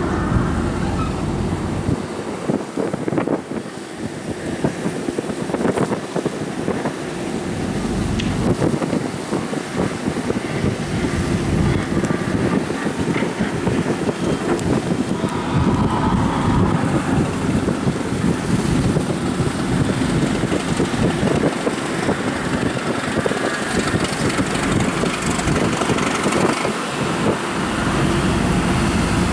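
Superdong II high-speed passenger ferry passing close: its engines running under the rush and splash of its bow wave and wake, with wind buffeting the microphone.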